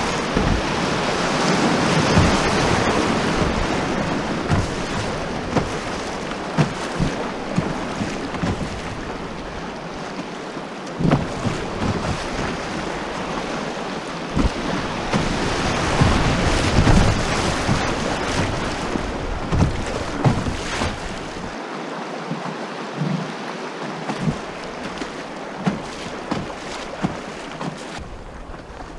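River rapids rushing around a canoe, with frequent short splashes and knocks. The rush swells twice and eases near the end as the water turns smoother.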